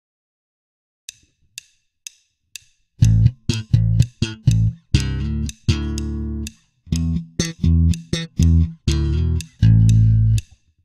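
Four short count-in clicks half a second apart, then a Fender-style electric bass played slap style. Sharp thumb-slapped and popped notes mix with held two-note double stops that ring out.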